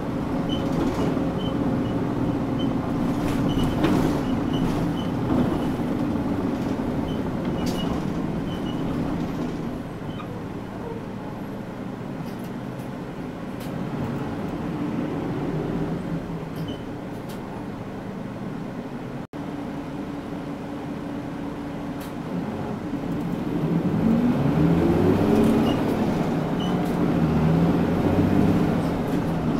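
Mitsubishi Fuso Aero Midi KK-MK27HM midi bus heard from inside while driving: diesel engine and road noise. The engine eases off from about ten seconds in, then near the end it speeds up with its pitch rising twice, a gear change between. A light, regular ticking runs through the first several seconds.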